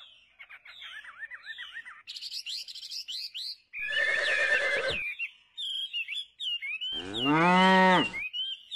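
Small birds chirping throughout, with a cow mooing once, loudly, about seven seconds in. A shorter, harsher call sounds about four seconds in.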